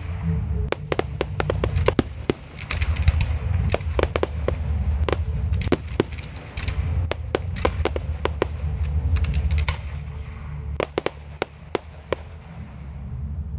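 Fireworks display: aerial shells launching and bursting in a dense run of sharp bangs, several a second, over a steady low rumble.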